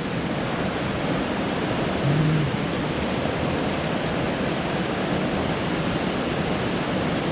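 A waterfall in heavy flow rushing steadily, a dense even roar of falling water with no letup.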